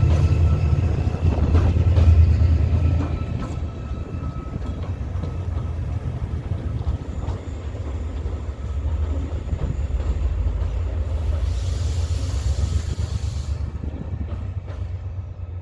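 Diesel engine of Class 68 locomotive 68017 and a second coupled locomotive pulling away, loud and low for the first few seconds. It then settles to a steadier, fainter rumble as the pair move off. A hiss lasts about two seconds, some eleven seconds in.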